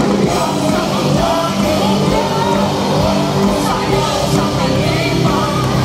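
Live band playing a worship song, with bass guitar and drums, while two singers sing into microphones over the PA.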